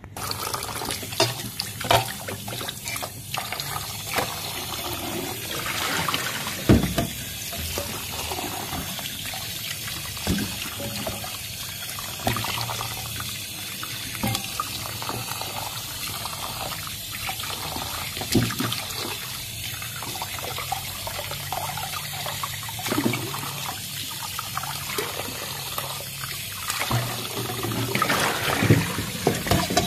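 Tap water running into a stainless steel bowl in a sink while a hand rubs and splashes pork bones and meat to rinse them, with a few sharper knocks and splashes now and then.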